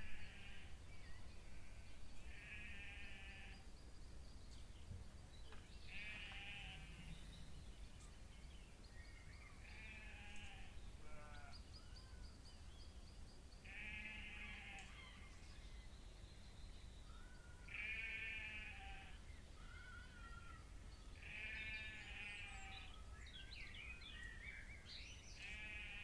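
An animal calling over and over, one harsh, buzzy call about a second long every three to four seconds, over faint high insect-like ticking.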